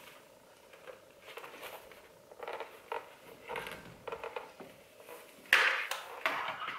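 Handling noise from a Bell Broozer motorcycle helmet being turned over in the hands: scattered rustles, light scrapes and taps of the shell and its fittings, with a louder rustle about five and a half seconds in.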